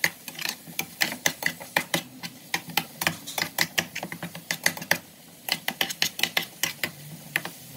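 Metal spoon knocking and scraping against a metal frying pan while stirring diced ham and onions, in quick irregular clicks with a couple of short pauses.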